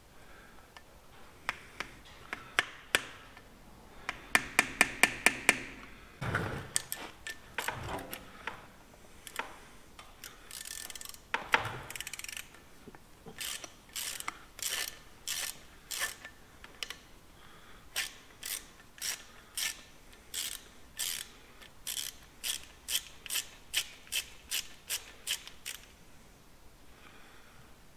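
Sharp metal taps from a hammer on a punch knocking back locking tabs on a Centurion tank gearbox flange, with a quick run of loud taps about four seconds in. Then a socket ratchet clicks in regular strokes, about two a second, as a flange bolt is undone.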